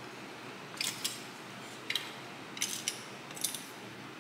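Faint small clicks and scrapes, four short ones about a second apart, from a drink can being handled and sipped from through a straw.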